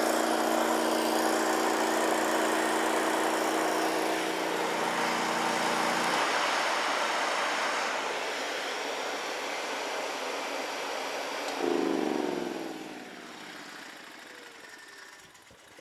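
Honda GX690-powered inverter generator running under the load of an 11 kW submersible pump. About six seconds in, the pump's steady electrical hum stops abruptly. Near twelve seconds there is a short surge, then a falling pitch as the machinery winds down, and the sound fades away.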